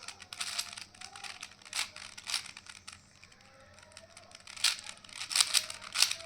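Plastic 4x4 Rubik's cube being turned by hand: irregular clicking and clacking as its layers snap round, in quick clusters, loudest in a run of turns in the last couple of seconds.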